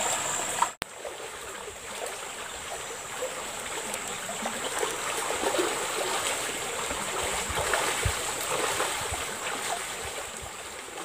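A shallow river flowing steadily, an even rush of running water. There is a brief break in the sound about a second in.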